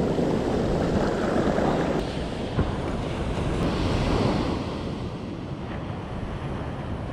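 Ocean surf breaking and washing up the beach, with wind buffeting the microphone; the wash eases off in the last couple of seconds.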